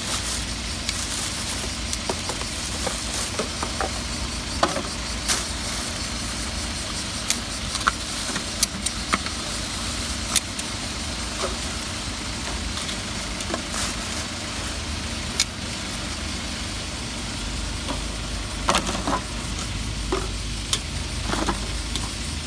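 Plastic garbage bags full of litter rustling and crinkling as they are handled, with scattered sharp crackles that bunch together near the end, over a steady low rumble.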